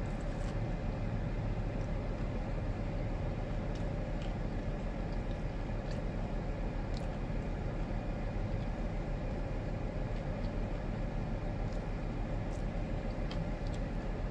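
Steady hum of a car idling, heard from inside the cabin, with a few faint clicks.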